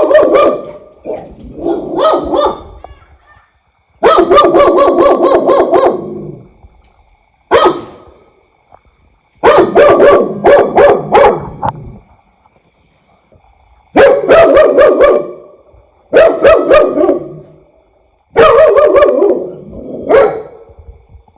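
A dog barking loudly in quick volleys of several barks each, about eight volleys with pauses of a second or two between them.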